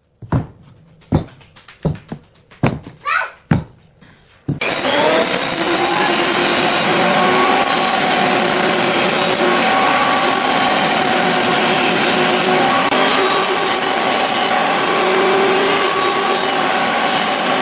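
About six sharp knocks of wooden strips being handled. Then, about four and a half seconds in, a jointer abruptly begins: loud steady machine noise as boards are fed across its cutterhead and planed.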